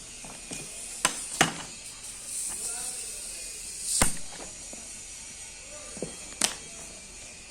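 Tyre and wheel work on a truck trailer: four sharp knocks, irregularly spaced, with a short squeak between the second and third.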